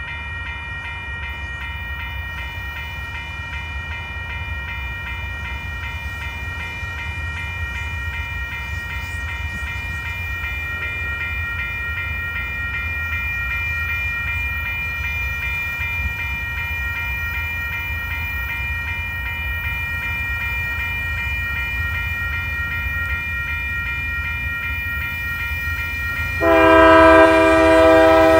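Railroad crossing signal bell ringing steadily while a freight train approaches. About two seconds before the end, the locomotive's air horn starts blowing loudly and sustains.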